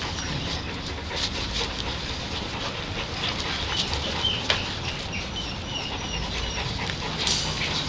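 American Pit Bull Terrier puppies giving short, high squeaks and whimpers, among scattered clicks and scratching over a steady noisy background.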